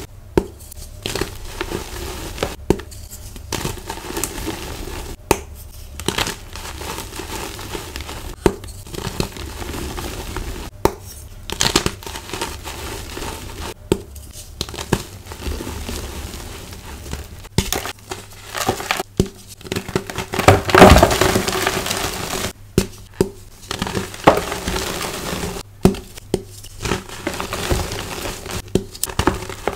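Hands crushing and crumbling blocks of dyed gym chalk (magnesium carbonate) into powder: dry crunching with many short, crisp cracks at irregular intervals. There is a louder, longer crunch about two-thirds of the way through.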